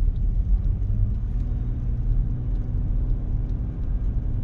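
A car driving at steady speed: a low, even rumble of engine and road noise, with a faint steady hum from the engine.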